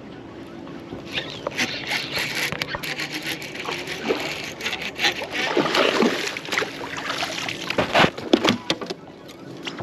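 A hooked bass splashing and thrashing at the water's surface as it is fought in close to the boat, in a run of irregular splashes that are loudest about eight seconds in.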